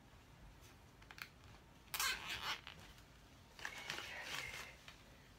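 Nylon cable ties being pulled tight through their locking heads: a short scratchy zip about two seconds in and a longer one near four seconds, with a few faint clicks before.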